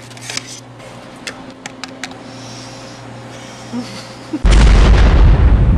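A low steady hum with a few light clicks of handling, then about four and a half seconds in a sudden very loud explosion boom that rumbles and slowly fades. The boom is an explosion sound effect laid over the scene.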